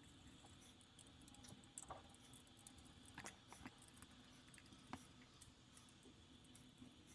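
Faint handling sounds: a few scattered small clicks and scrapes as a battery management system (BMS) module is opened up by hand.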